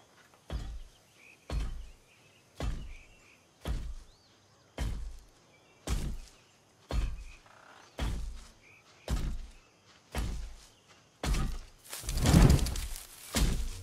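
Heavy mechanical footsteps of a large walking robot: a deep thud about once a second, evenly paced. The steps grow louder near the end, with a longer, louder clatter among them.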